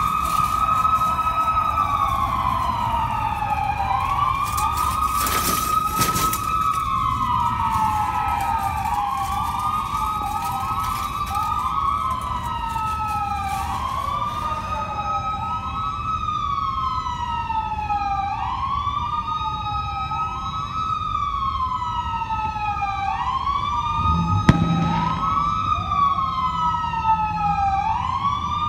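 Several police car sirens wailing at once. Their rising and falling wails overlap out of step with one another over a low traffic rumble. There is one sharp knock about three-quarters of the way through.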